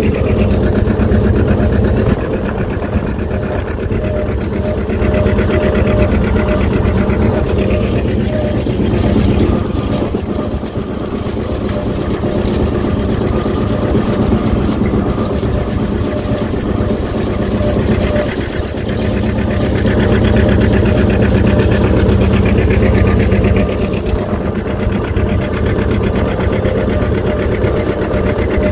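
A 1951 John Deere R's two-cylinder diesel engine running steadily under load as the tractor pulls a harrow, with a rapid, even beat.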